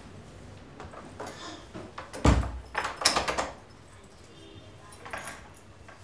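A wooden front door pushed shut with a heavy thud, followed at once by a quick run of clicks and rattles from its latch and lock being turned.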